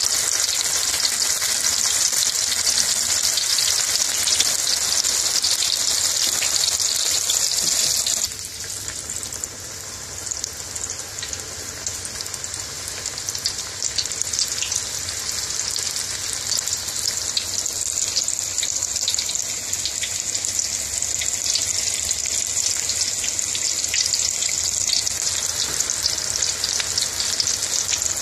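Onion bhajis deep-frying in hot oil: a steady hiss of sizzling with small crackles. It drops abruptly about a third of the way through and then slowly builds back up.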